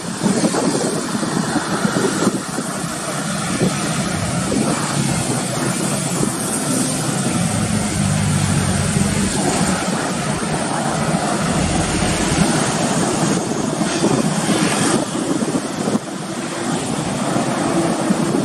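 Road traffic passing: engines of trucks, a pickup and motorcycles with tyre noise, a heavier low engine drone strongest around the middle.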